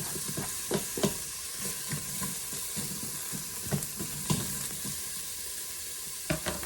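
Chopped onions and garlic sizzling in hot olive oil in an Instant Pot on the sauté setting, a steady frying hiss. Scattered knocks come through it, a cluster of them near the end.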